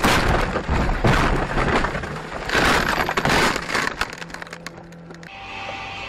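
A car rolling over: a run of loud crunching impacts with breaking glass, then scattered clicks and tinkles as it comes to rest. About five seconds in, this gives way to a steady low hum.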